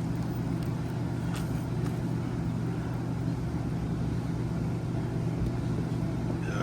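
Steady low mechanical hum of a running motor or engine, with a faint click about a second and a half in.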